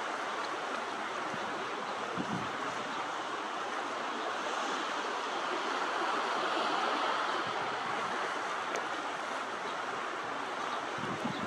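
Steady rushing of wind and waves that swells a little in the middle, with a couple of brief low thumps.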